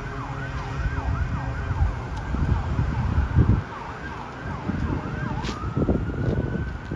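Pierce fire engine's electronic siren on a fast yelp, about two to three sweeps a second, switching a little over five seconds in to a slow rising wail. Traffic rumble underneath, loudest in the middle.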